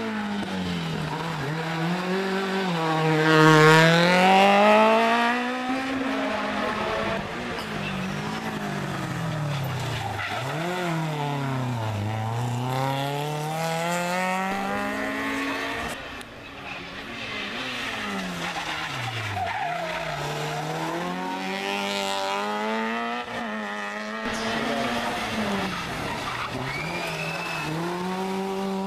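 Rally car engines revving hard through a hairpin, one car after another. Each engine's pitch climbs and drops repeatedly with throttle and gear changes, and the first pass, a few seconds in, is the loudest.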